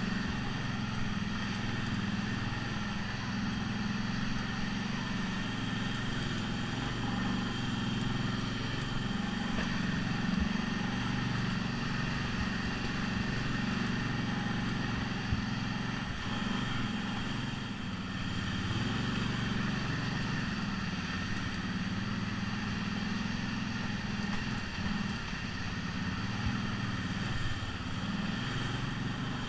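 ATV engine running at low trail speed, its note wavering a little with the throttle and dropping briefly about two-thirds of the way in.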